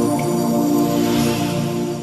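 Intro music of calm, new-age style built from sustained, held tones, starting to fade out near the end.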